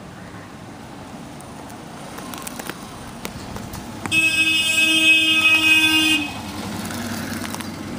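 A vehicle horn sounding once, a steady held tone lasting about two seconds, starting about four seconds in.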